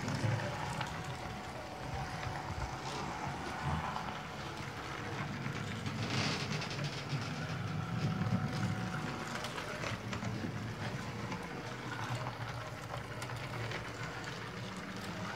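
Small electric motor of a self-driving model bus running along a model layout: a thin steady whine over a low rumble.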